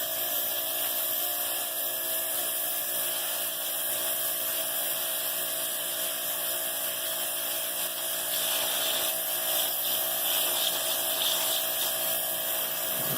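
Pressure washer running steadily, a continuous machine whine made of several fixed tones. From about eight seconds in a patchy hiss joins it.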